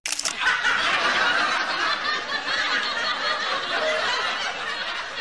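Canned laughter: a crowd laughing, starting abruptly.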